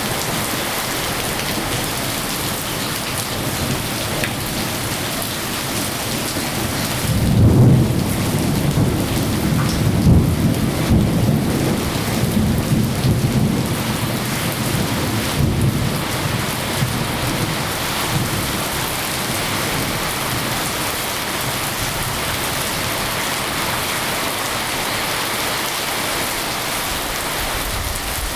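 Steady rain falling, with a roll of thunder starting about seven seconds in that rumbles on for several seconds before fading back into the rain.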